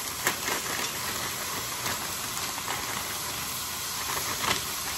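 Steady sizzling hiss from a hot pot of sautéed ham, green peppers and tomato sauce as frozen corn kernels are poured in, with a few light clicks of kernels landing.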